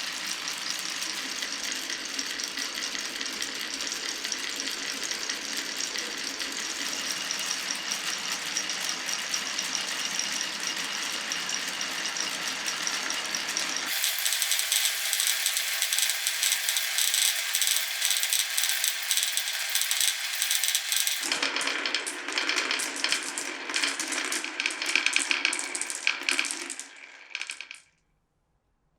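Many glass marbles rolling and clattering along a wooden marble run, a continuous dense rattle of small clicks. The sound changes abruptly twice, then fades out and drops to silence near the end.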